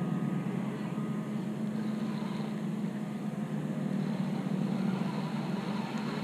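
Spinning reel being cranked steadily, its gears giving a continuous low whir as line is wound back in.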